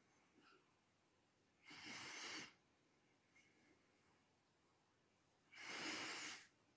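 A person's breath heard twice, about four seconds apart, each lasting under a second, against near silence.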